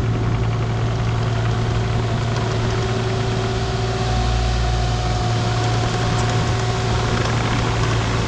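Diesel engine of a compact construction machine running steadily at a constant speed, with a deep hum throughout, as the machine works backfilling and rough grading.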